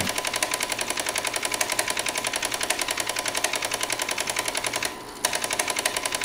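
Rapid, even mechanical clattering, about ten clicks a second, that breaks off briefly near five seconds in and then resumes.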